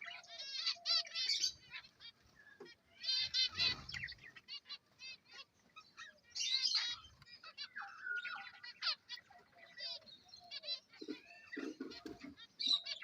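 Aviary finches chirping and twittering: many quick, overlapping high calls from a flock of caged birds.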